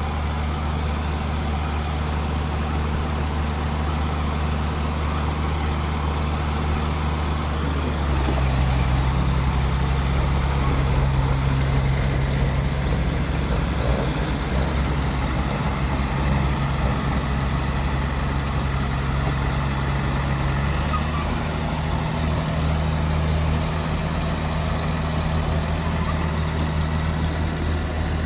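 Heavy truck engine running under load with a steady low drone. Its note steps up about eight seconds in and shifts again about two-thirds of the way through.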